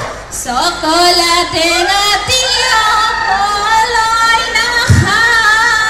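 Women singing live through a stage sound system, their voices held in long, wavering notes, with a few low drum beats underneath.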